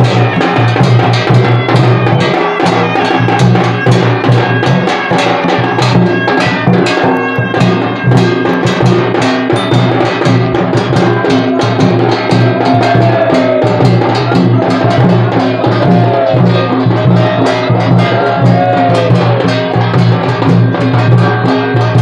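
Danda Nacha drumming: two-headed barrel drums beaten in fast, steady strokes over a constant low hum. A wavering melody line rises over the drums about halfway through.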